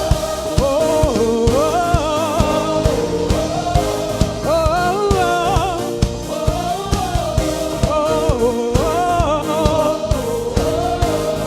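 Live worship band playing an upbeat song, with a steady drum beat and held chords, while a voice sings a gliding, wordless melody over it.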